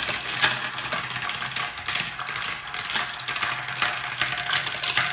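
Glass marbles rattling down a plastic marble-run track and clacking onto a glass jar full of marbles: a steady, dense stream of clicks and clatter.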